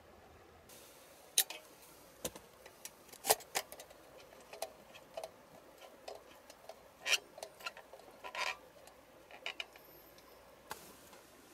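Wood campfire crackling, with irregular sharp pops and clicks of varying loudness.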